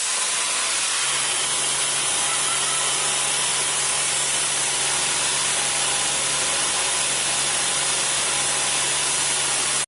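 Machinery running steadily during sewer cleaning, a loud, even hiss with a steady low engine-like hum that sets in about a second in.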